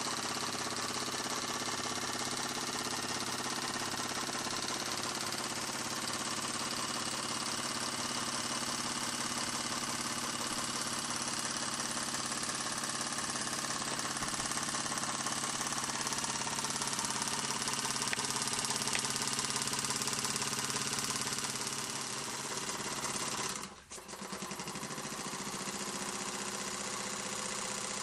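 1929 Meccano toy steam engine running steadily under steam on its first steaming after restoration: a fast, even mechanical clatter over a steady hiss. The sound breaks off briefly near the end and then carries on.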